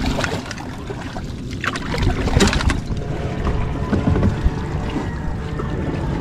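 Knocks and splashes on a small boat over a steady low rumble, as crab traps are worked from it.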